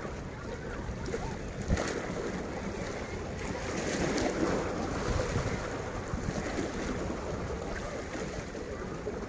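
Wind noise on the microphone over sea waves washing against the shore, with one short knock about two seconds in.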